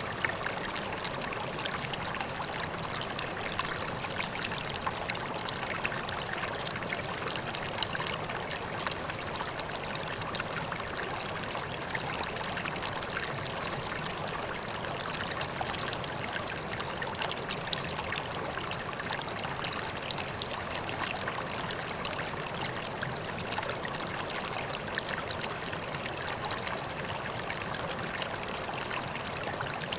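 Water flowing and trickling steadily into a koi pond, an even rush with many small splashes.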